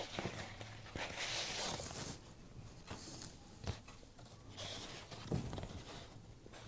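Faint rustling and crinkling of a paper letter being handled and unfolded, in several short bursts with a few light clicks.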